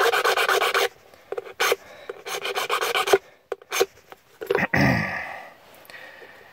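Small hand file rasping rapidly across a key blank, cutting the key's bitting by hand: a fast run of strokes that stops about a second in, a shorter run about two seconds in, and a few light clicks between. A brief low breathy sound with a falling pitch about five seconds in.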